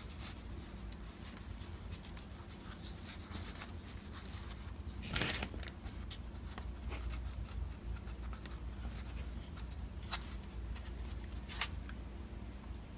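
Hands working loose potting soil into a small plastic pot around an African violet plantlet: soft rustling and crumbling of the soil, a louder scrape of soil being scooped from a plastic bowl about five seconds in, and a couple of sharp ticks near the end. A low steady hum runs underneath.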